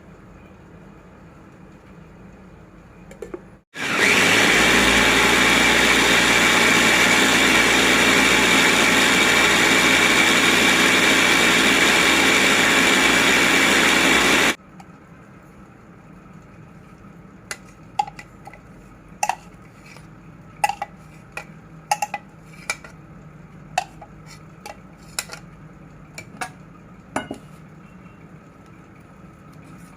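Electric food chopper running at full speed for about ten seconds, grinding the spice paste, starting and stopping abruptly. Afterwards come a dozen or so light, sharp clicks and knocks.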